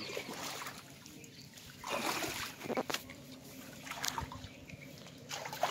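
Shallow water splashing and trickling at a net fish trap, with a few short splashes about two seconds in, again about three seconds in, and near the end.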